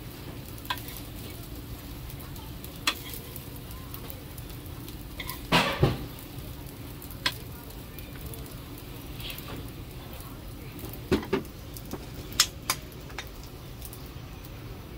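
Plastic spoon scraping and knocking against a nonstick frying pan and a paper cup as fried rice is scooped into the cup: scattered sharp knocks, the loudest pair about halfway through, over a steady low background noise.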